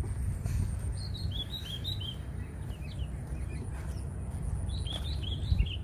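A small songbird singing two runs of quick, high chirping notes, the first about a second in and the second near the end, over a steady low rumble. A brief low thump comes near the end.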